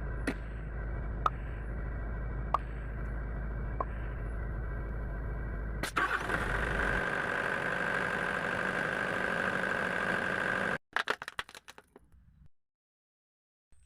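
Excavator's diesel engine running steadily, with a light click every second or so; about six seconds in it gets louder and higher-pitched, then the sound breaks up and stops short near the end.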